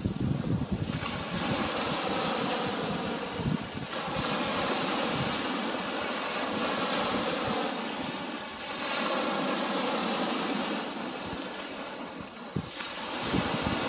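Ocean surf breaking and washing up a sandy beach: a steady rushing hiss that swells and eases every few seconds as each wave comes in.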